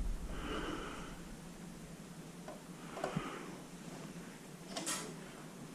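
Low background noise with a few faint clicks and taps, about three seconds in and near five seconds.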